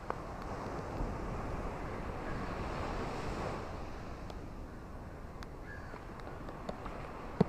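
Ocean surf washing on a shore, swelling about two seconds in and easing off again, with a few brief bird calls and scattered light ticks over it.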